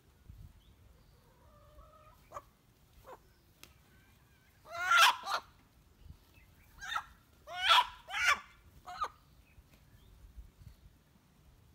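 Chicken squawking loudly while being grabbed and held, in several harsh calls bunched through the middle, with fainter clucks before them.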